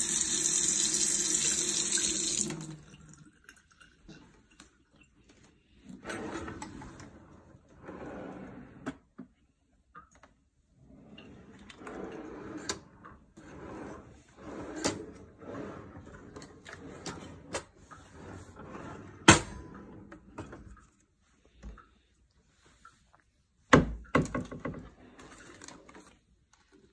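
Kitchen faucet running into a stainless-steel sink, shut off after about two and a half seconds. Then drawers and a pull-out cabinet sliding open and shut, with clatter and several sharp knocks, the loudest about two-thirds of the way through.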